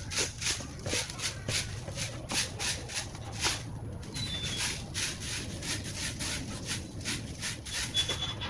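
A broom sweeping with quick, rhythmic swishing strokes, about two or three a second. Two faint bird chirps come through, one about halfway and one near the end.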